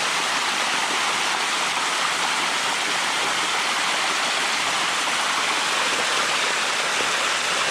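Water rushing steadily down a limestone cascade waterfall, a constant even hiss of falling and splashing water.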